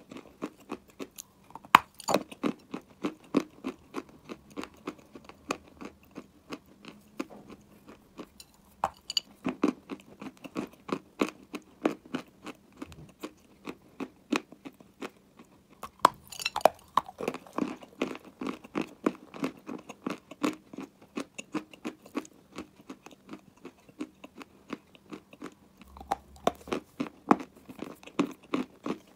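Close-miked chewing of a lump of dry clay: a steady run of crisp, gritty crunches, a few a second. Louder clusters of crunches come every several seconds.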